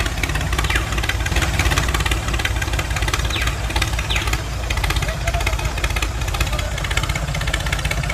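Small electric motor and exposed gear train of a homemade miniature tractor, whirring and rattling steadily as the toy drives across sand.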